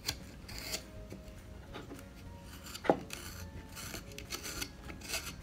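Carving knife slicing and paring wood in a run of short scraping strokes, with one sharp click about three seconds in.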